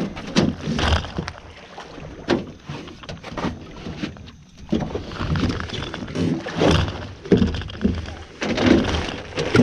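An alligator being hauled over the side of a small metal boat: water splashing and sloshing, with irregular knocks and thumps against the hull.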